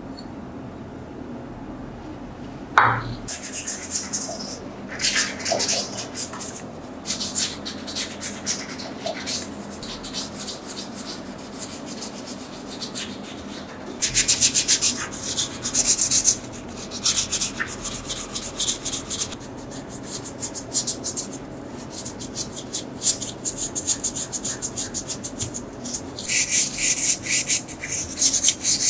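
Sandpaper rubbed by hand over a small metal teapot part, in bouts of quick back-and-forth strokes with short pauses between them. The strokes begin after a light knock about three seconds in.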